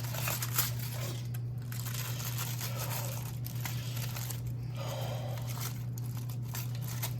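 Crinkling and tearing of a wrapping being opened around a hot roasted fish, in irregular rustles, over a steady low hum.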